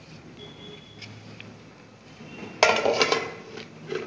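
Kitchen utensils clinking against a steel plate during ingredient handling: quiet for a few seconds, then a short clatter about two and a half seconds in and a small knock near the end.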